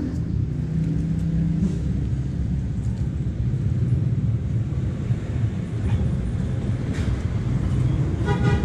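A steady low outdoor rumble.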